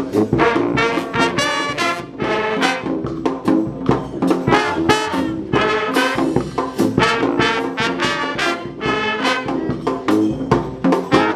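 Street brass band playing a tune in short, quick notes, its horns sounding together.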